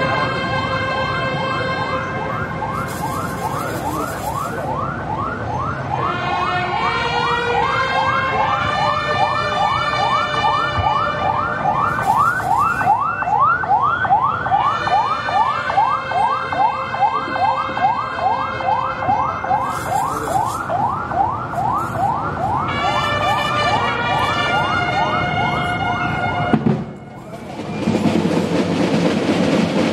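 Cadet marching drum band playing sustained chords, overlaid through the middle by a fast siren-like rising whoop that repeats about four times a second. Near the end a sharp thump and a brief drop in level lead into a dense, noisy percussion passage.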